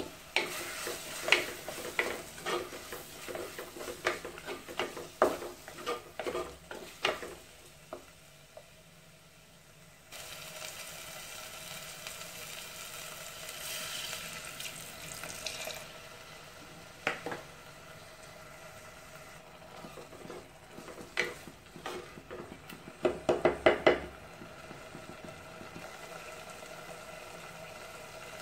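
Wooden spatula knocking and scraping against a clay cooking pot while prawns are stirred in a sizzling masala. About ten seconds in, water is poured into the pot with a steady hiss for several seconds, and then the spatula knocks again, in a quick run near the end.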